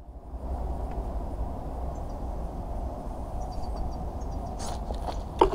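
Quiet outdoor ambience picked up by a camera lying in grass: a steady low rumble of wind on the microphone, a few faint ticks, and a sharp knock near the end.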